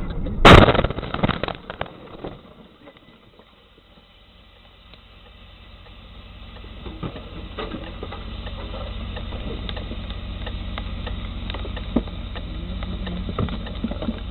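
A vehicle slams into the back of a truck: one loud crash about half a second in, with clattering for a second or so after. Then it goes quiet, and a steady low engine hum builds up with scattered clicks and knocks, heard from inside the cab.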